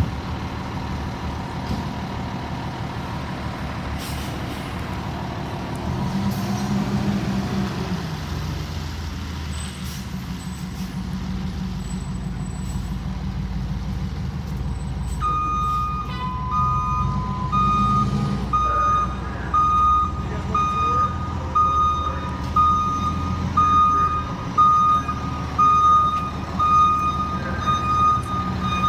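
Fire engine's diesel engine running as the truck manoeuvres, swelling about six seconds in. About halfway through, its reversing alarm starts beeping about once a second as the engine backs up.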